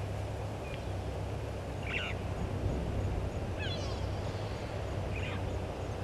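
Brown-headed parrot giving a few short, high-pitched calls about a second and a half apart, over a steady low background rumble.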